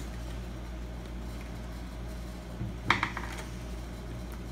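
A short metallic clatter of clicks about three seconds in: a deadbolt latch knocking in a wooden door's edge bore as it is pushed into place. A steady low hum runs underneath.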